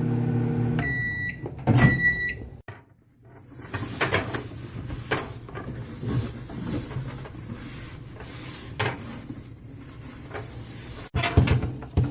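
Microwave oven humming as it runs, then stopping a little under a second in and beeping twice, the end-of-cycle signal. After that come scattered clicks, knocks and rustling of handling at the microwave, with a sharp knock near the end.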